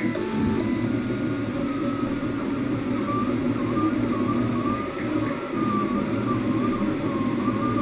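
Ultimaker-clone 3D printer running: its stepper motors whine in thin tones that step and wander in pitch as the axes move, over a steady mechanical whir.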